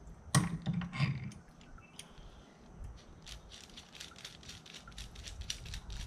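A metal bar clamp being released and handled: a sharp knock about half a second in, then a run of quick, light clicks and rattles from about three seconds in.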